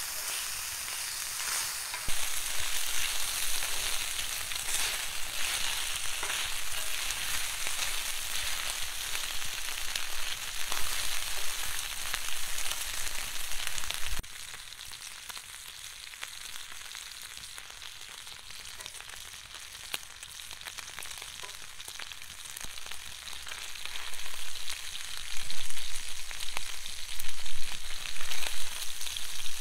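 Sliced meat sizzling and frying on a hot cast-iron griddle pan, turned with wooden tongs. A steady hiss that gets louder about two seconds in, drops suddenly about halfway, and builds again into louder, uneven sizzling near the end.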